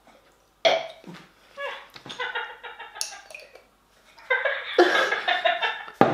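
A man coughing and gagging in disgust after swallowing dog beer, in several bouts: a sudden first one under a second in, then louder ones near the end.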